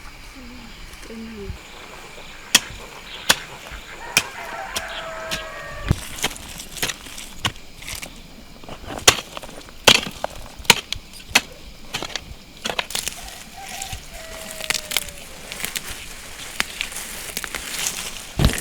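Irregular sharp clicks and knocks of handling or chopping, with a few short fowl calls in between: a low one near the start, a few higher ones around the middle, and a falling one later on.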